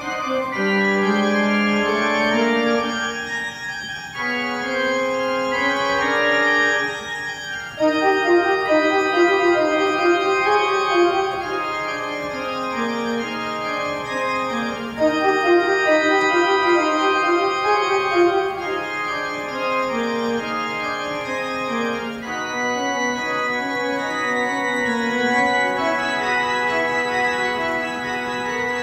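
Church organ music played on a two-manual console with pedals: held chords under quick-moving runs in the upper voices, growing louder about eight seconds in.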